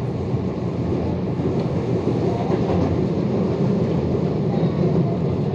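Electric commuter train running between stations, heard from inside the passenger car: a steady rumble of wheels on the rails.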